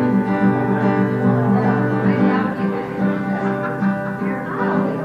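Acoustic guitar strummed live, an instrumental passage of a song between sung lines.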